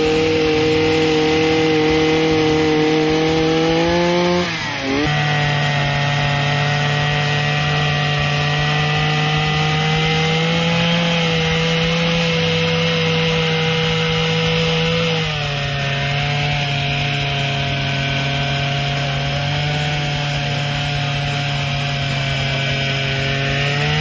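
Small petrol engine of a pole hedge trimmer running steadily under cutting. Its pitch shifts down twice, about four and a half seconds in and again about fifteen seconds in.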